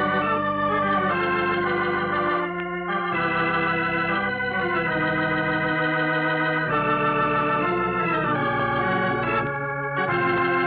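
Organ music: sustained chords that change every second or two, with short breaks about two and a half seconds in and again near the end.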